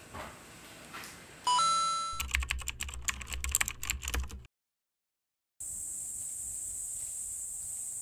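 A sudden chime, then about two seconds of rapid keyboard-typing clicks over a low hum: a typing sound effect for on-screen text. After a second of silence, a steady high insect drone begins.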